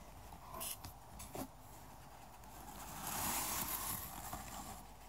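Paper towels rustling and crinkling as they are pulled out of a cardboard shipping box: a few short crackles in the first second and a half, then a longer, louder rustle about three seconds in.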